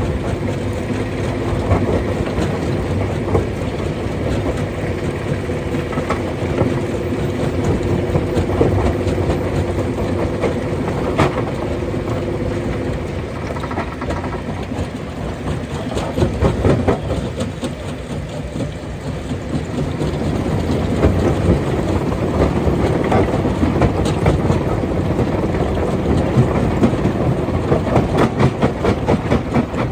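Stone crusher running steadily under load, with a low mechanical hum and frequent sharp knocks and cracks of rock being broken, in quick runs of knocks twice in the second half.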